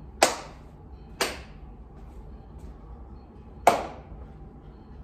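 Three sharp cracks with a short echo after each: one just after the start, one about a second later, and the loudest about three and a half seconds in. Between them there is a low steady hum.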